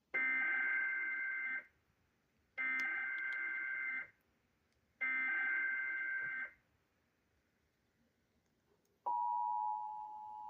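Emergency Alert System SAME header from a NOAA Weather Radio broadcast: three identical buzzy two-pitch digital data bursts, each about a second and a half long with a second's pause between, marking the start of a new warning. About nine seconds in, the steady warning alarm tone begins.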